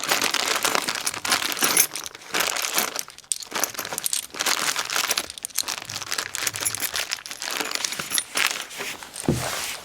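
Plastic packaging crinkling and rustling as parts are unwrapped and handled, with a short lull about three seconds in.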